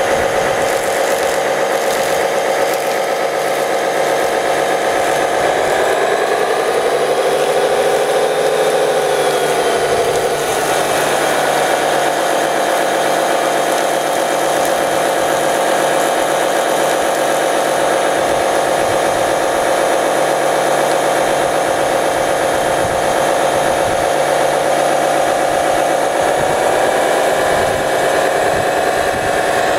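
Small motor-driven water pumps of RC model fire trucks run steadily while their monitors spray water and foam, giving a continuous mechanical whine. The whine's pitch sags about six seconds in, recovers about five seconds later, and rises slightly again near the end.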